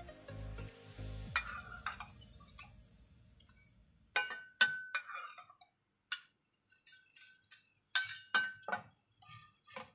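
Metal spatula clinking against a stainless mesh strainer and the rim of a frying pan while fried potato chips are scooped out of the oil. There are several sharp metallic clinks with a short ring: a group of three about four seconds in, a single one a second later, and another group of three near the end.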